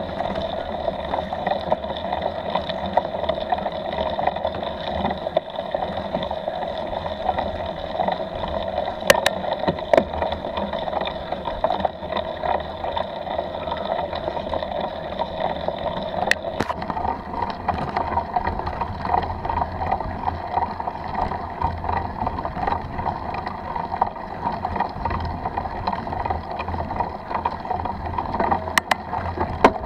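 Steady muffled ride noise of a mountain bike on a dirt track: tyres rolling and the bike rattling, picked up by a bike-mounted camera microphone. A few sharp clicks stand out, about nine, ten, sixteen and twenty-nine seconds in.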